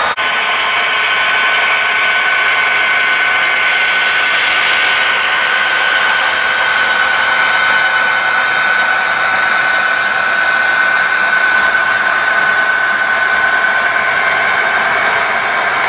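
HO scale model freight train running past: a steady mechanical whirr of wheels on the rails and locomotive motors, with a thin steady whine above it.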